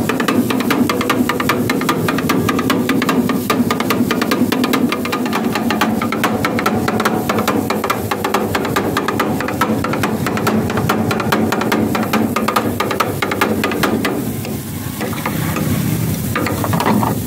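Two metal spatulas rapidly chopping and scraping chicken on a hot flat steel griddle: a fast, steady clatter of metal on metal over the sizzle of frying. The chopping eases off about fourteen seconds in and picks up again near the end.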